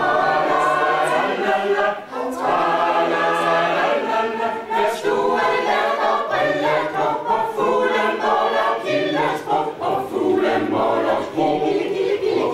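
Amateur mixed choir singing a Danish song, with a short break between phrases about two seconds in.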